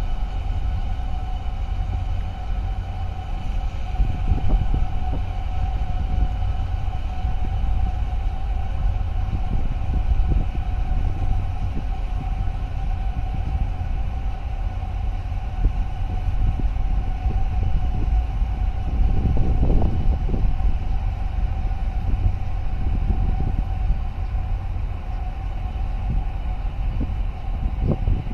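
Large container ship passing close by: its engines and machinery give a steady low rumble, with a constant hum and a few higher tones above it.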